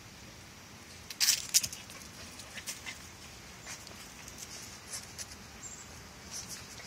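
Pembroke Welsh Corgi puppies' claws and paws scrabbling and tapping on a concrete patio as they wrestle: irregular short scrapes and ticks, with a louder flurry about a second in.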